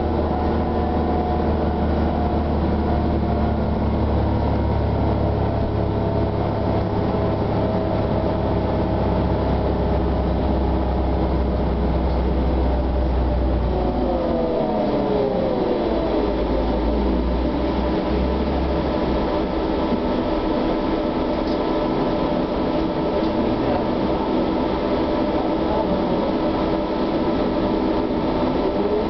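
Inside an SOR TN12A trolleybus: the electric traction drive whines as a stack of tones over a steady road rumble. About halfway through the tones slide down in pitch as the trolleybus slows, and near the end they begin to rise again as it picks up speed.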